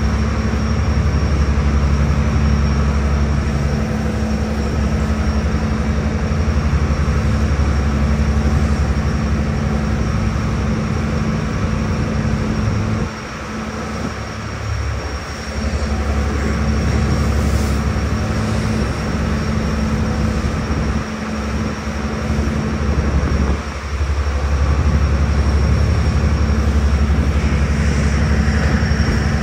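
Ferry engines running with a steady low drone that dips briefly a few times in the middle.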